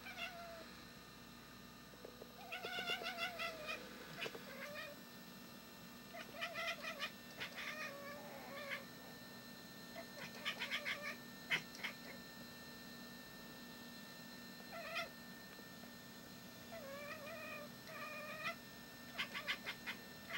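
Domestic cat giving bark-like calls at a bird outside the window: several bouts of short, wavering calls mixed with quick runs of clicking chatter, with pauses between.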